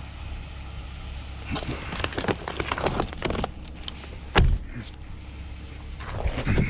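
Clatter and knocks of parts being handled while dismantling scrap, with one heavy thump about four and a half seconds in.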